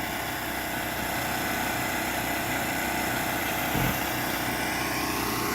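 Concrete saw with a diamond blade running steadily while cutting control joints into a fresh concrete slab, with a small knock about four seconds in.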